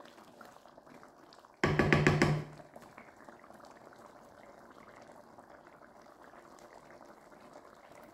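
Thick curry simmering faintly in the pan. About a second and a half in comes a short, loud burst of music lasting about a second.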